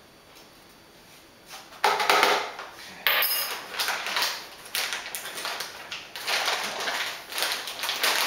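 A coffee scoop scraping ground coffee out of its bag and tapping into a coffee maker's filter basket, with the coffee bag rustling and crinkling. After a quiet second or two, the clatter and crinkling come in short irregular bursts.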